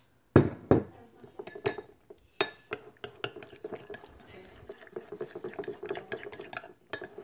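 Metal spoon stirring mayonnaise and hot sauce in a small ceramic bowl, clinking and scraping against the bowl in a fast, continuous run from about three seconds in. A couple of loud knocks come under a second in, with scattered clicks after them.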